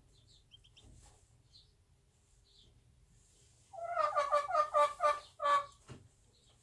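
Bantam hen in the nest clucking: a quick run of about nine short clucks over some two seconds, starting a little past the middle. Before it, a few faint high peeps from her chicks.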